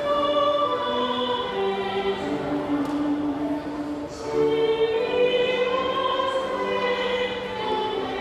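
A choir sings a hymn with instrumental accompaniment: long held notes that move from pitch to pitch, with a short breath between phrases about four seconds in.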